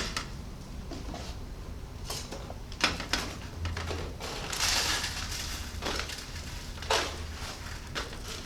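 Asphalt concrete mix being spread and levelled in a metal ignition-furnace sample basket: gritty scraping and crunching of the aggregate, with scattered sharp clinks of tool and stones against the metal, two of them louder, about three and seven seconds in.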